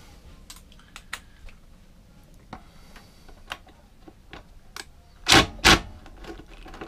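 Two short loud bursts from a DeWalt cordless driver turning a socket on a mower's blade-cover screw, about five seconds in, after a run of small clicks and knocks from the socket and tool being handled.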